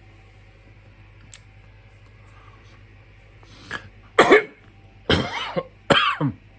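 A person sneezes hard about four seconds in, with a short intake of breath just before, then coughs twice. The sneeze and coughs are set off by the burn of a superhot chili pepper.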